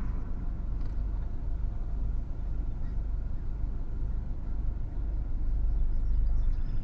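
Low, fluctuating rumble of gusty wind buffeting the microphone as a thunderstorm's gust front arrives, growing a little stronger near the end.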